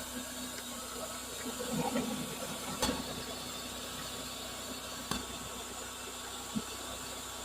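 Band sawmill's engine running steadily, a hissing drone, with two sharp clicks and a few low knocks from the mill's machinery.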